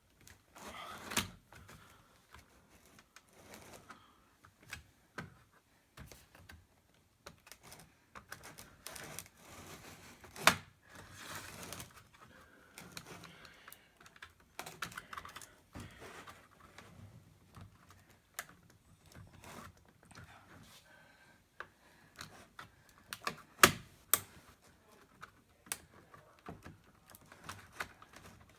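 Plastic back cover of an Asus X53U laptop being pried off by hand: irregular clicks and snaps as its plastic clips release, with two louder snaps, about ten seconds in and again near the end.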